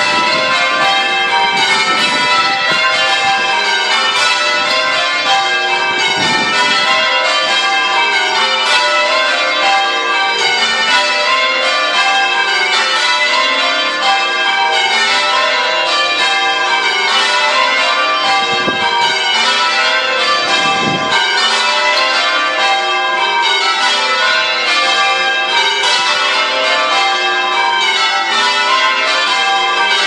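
A ring of eight church bells, the oldest of them a tenor cast in 1441, ringing changes. The strikes follow one another in a steady, unbroken stream, each bell's ring overlapping the next.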